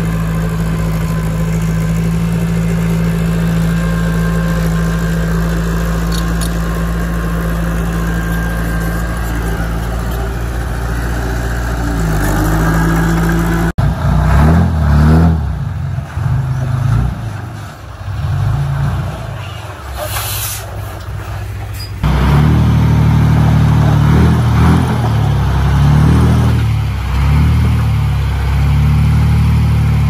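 A heavy earthmoving machine's diesel engine running with a steady drone, then, after an abrupt change just under halfway, rising and falling in speed as it works under load. There is a brief high hiss about two-thirds in, and the engine runs louder and steadier again from about three-quarters through.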